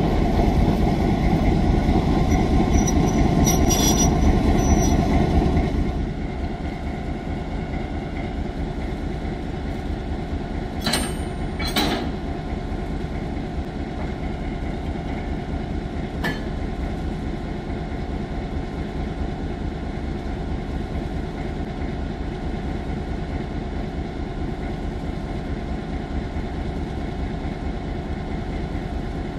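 Mixed train hauled by a diesel locomotive running, louder for the first six seconds and then dropping to a steadier, quieter rumble. Two sharp clanks come about eleven and twelve seconds in.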